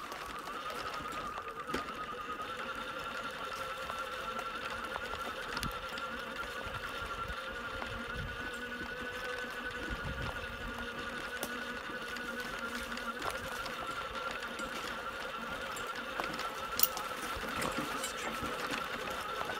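Electric drive motor of a wheelchair trike whining steadily at a near-constant pitch while riding along a dirt woodland path, over a low rumble of tyres on the rough ground with scattered small knocks and one sharp knock near the end.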